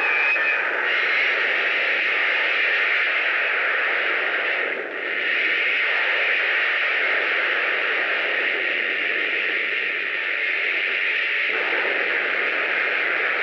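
Steady, fairly loud hiss like radio static, with a brief dip about five seconds in.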